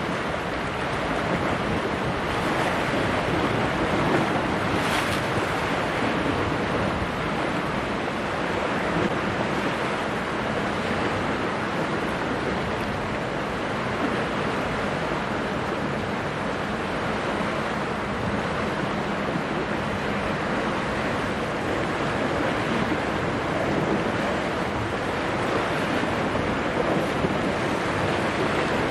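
Steady rush of wind and choppy sea water, with wind buffeting the microphone.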